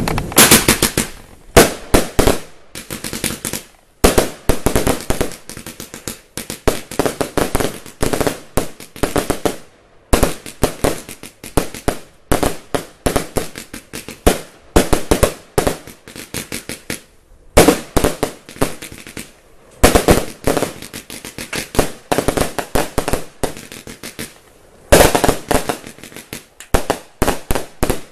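Lesli Thunder Kong XXL firework batteries firing: rapid volleys of sharp bangs and crackles, in runs broken by short pauses every several seconds.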